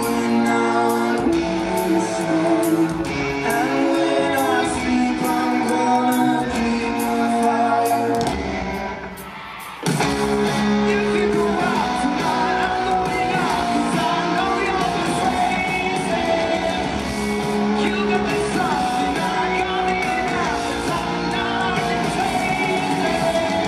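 Live concert music: a male singer sings with full band accompaniment in a large hall. The music thins and dips about eight seconds in, then the full band comes back in sharply near the ten-second mark.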